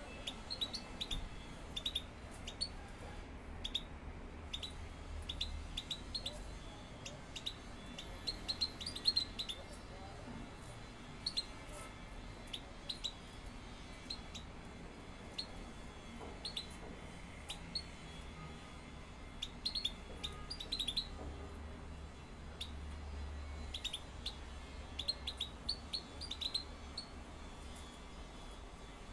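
Caged European goldfinches calling: short, high, sharp chirps that come in loose clusters of several notes every second or two.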